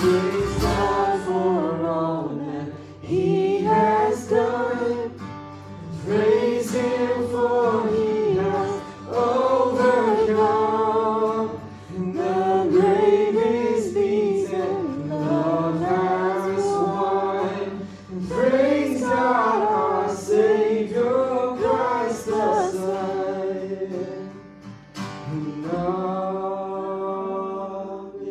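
A man sings a worship song with strummed acoustic guitar accompaniment. Near the end the singing stops and the guitar plays on alone.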